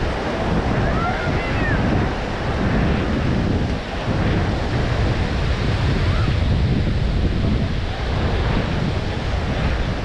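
Atlantic Ocean surf washing onto the beach, with wind buffeting the microphone.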